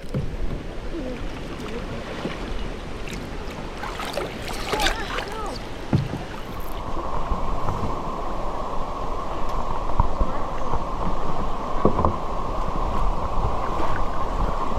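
Creek water rushing, with wind rumbling on the microphone; about halfway through, a steady high-pitched hum joins in over it.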